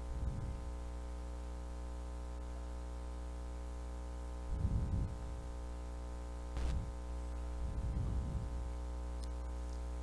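Steady electrical hum with a buzz of many overtones, joined by a few short, low, muffled bumps and one sharp click about six and a half seconds in.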